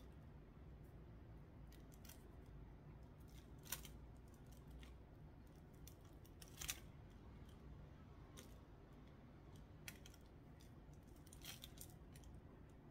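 Faint, scattered small crisp clicks and crackles of fingers picking dry roots and old soil off succulent stems, over a low steady hum.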